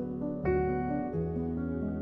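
Gentle instrumental background music with held notes; a new chord comes in about half a second in.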